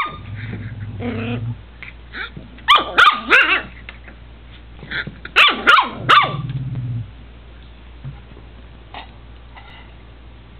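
Papillon puppy growling low, then letting out two quick runs of high yapping barks, three or four in each, and growling again right after the second run.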